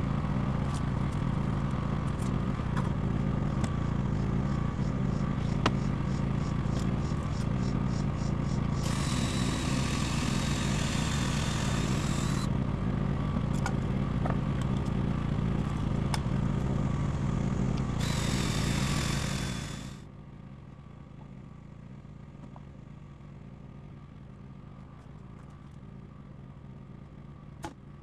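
A small engine running steadily with a low hum, with two spells of loud hiss over it. About twenty seconds in it drops away sharply, leaving a fainter steady hum.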